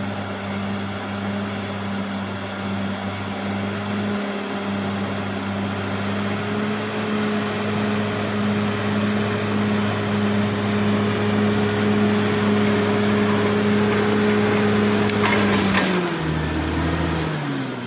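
CAT D6R XL bulldozer's diesel engine running steadily under load. Near the end the engine speed drops and wavers.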